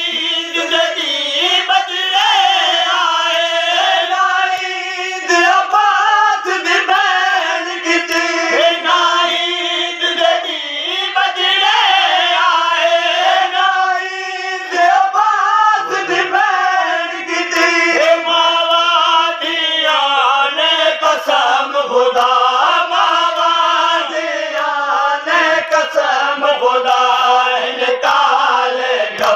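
A group of men singing a Shia noha (mourning lament) together in chorus, unaccompanied, in long drawn-out phrases.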